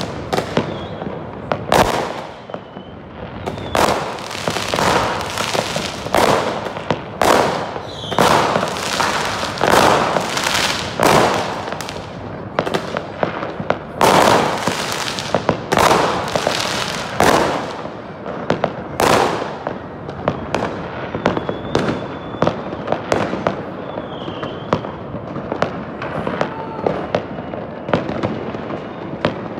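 Many fireworks and firecrackers going off across a city at once: dense, overlapping bangs that echo out, giving way in the last third to thinner, sharper scattered pops and crackle.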